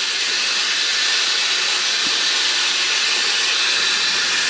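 Shower head spraying water onto a tiled shower wall, a steady hiss.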